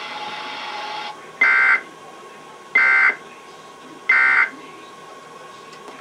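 Emergency Alert System end-of-message data tones: three short, identical electronic warbling bursts a little over a second apart, the digital code that signals the end of the alert.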